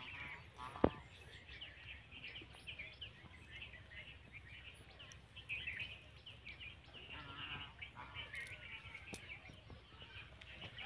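Small birds chirping continuously in quick short calls, with faint voices talking now and then. A single sharp click about a second in.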